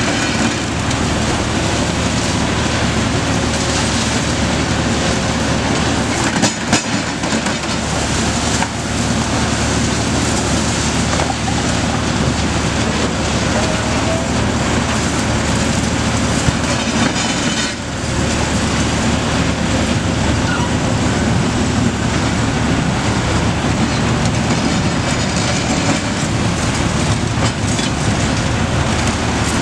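Heavy demolition excavators running under load while hydraulic concrete shears crush and break concrete, with broken concrete and rubble clattering down: a continuous, loud mechanical din.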